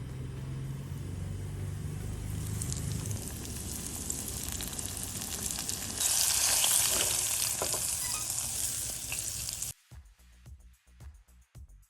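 Fish frying in oil: a sizzle that grows and jumps louder about halfway through, then cuts off suddenly near the end.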